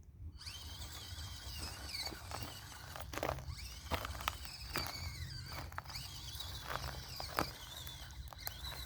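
An SCX24 1/24-scale RC crawler's stock motor and drivetrain whining, rising and falling in pitch with the throttle, over a low hum, with scattered sharp clicks as it crawls.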